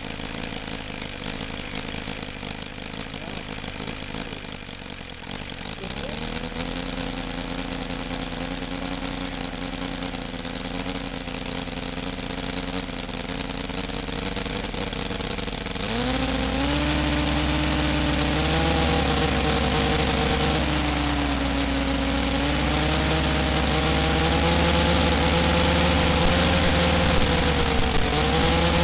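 Working scale model of a Bentley rotary aircraft engine running, the whole engine turning with its propeller. It runs with a rapid buzz, picks up speed about six seconds in and again, louder, about sixteen seconds in, then its speed rises and falls a little.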